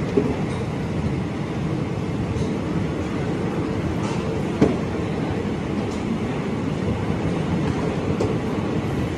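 Konkan Railway passenger train running through a tunnel, heard from inside the coach: a steady, dense rumble of wheels on rail, with two sharp clacks, one just after the start and one about halfway through.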